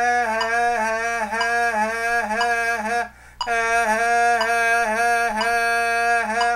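A man sings a solfège note name over and over on one held pitch, about three syllables a second, in two long phrases with a breath about three seconds in, reading a rhythm exercise aloud.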